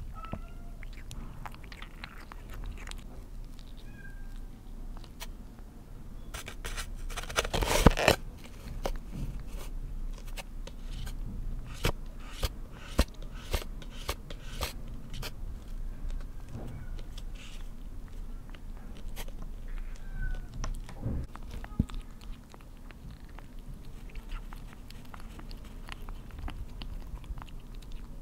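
Kitten eating wet cat food from a plate: close, wet chewing and smacking made of many small clicks, with a louder flurry of clicks about eight seconds in. A few brief high mews come in between.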